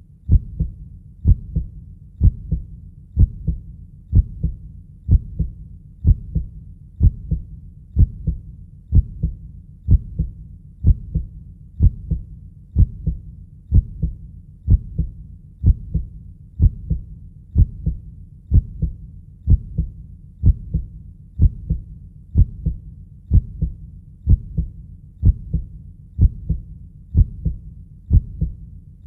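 Heartbeat sound: a steady, deep lub-dub double thump, about one beat a second.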